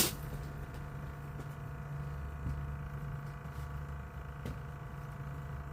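A steady low hum with a few faint light ticks.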